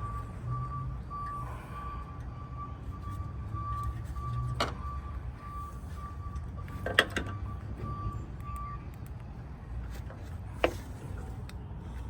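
A vehicle's reversing alarm beeping in a steady series until about three-quarters of the way through, over a low engine rumble. A few sharp metallic clicks stand out, the loudest two in the second half.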